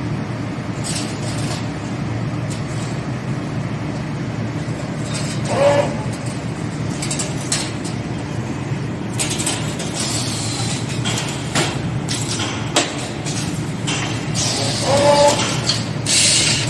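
Automatic wire-forming machine for S-hooks and clothes hangers running: a steady low hum broken by irregular clacks of the forming tooling and short hisses of air from its pneumatic cylinders, coming thicker in the second half.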